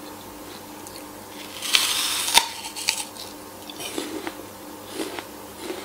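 A person biting into a raw red apple: a crunch about two seconds in that ends in a sharp snap, then chewing with scattered small crunches and clicks.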